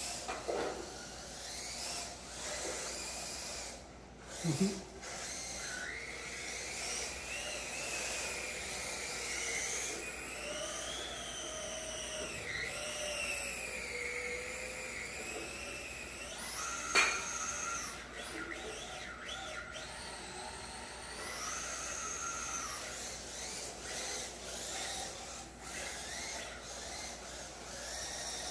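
Two electric RC drift cars running: motor whine rising and falling with the throttle over tyres scrubbing on the foam mats. There is a dull knock about four and a half seconds in and a sharp loud knock about seventeen seconds in.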